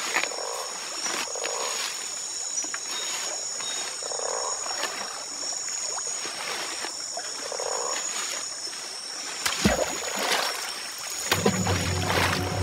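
Wildlife ambience: a steady high-pitched drone with short, soft animal calls repeating every second or two. A single thump comes about ten seconds in, and music enters near the end.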